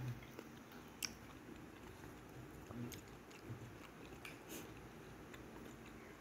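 Faint eating sounds: chopsticks ticking against a plate as noodles are lifted, with soft chewing. One sharper click about a second in, then lighter scattered ticks.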